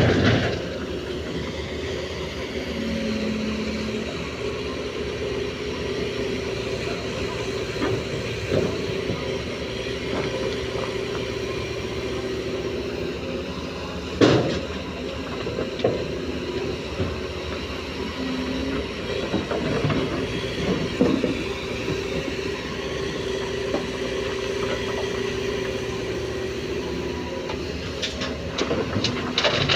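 Komatsu PC205 excavator's diesel engine and hydraulics working steadily under load while loading murrum into a tipper, with sharp metallic clanks, the loudest about halfway through and several more near the end.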